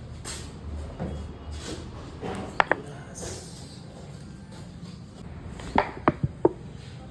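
Sharp joint cracks from chiropractic manipulation: two quick pops about two and a half seconds in, then a fast run of four near the end, over a low rustle of handling.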